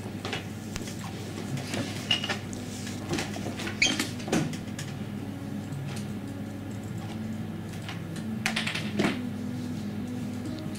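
A few light clicks and knocks, the loudest about four seconds in and again about nine seconds in, over a steady low room hum.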